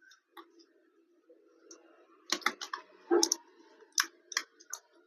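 Sharp small clicks and taps of a tool and fingers working a laptop's battery connector loose from the motherboard, a few faint ones at first, then a quick cluster from about two seconds in.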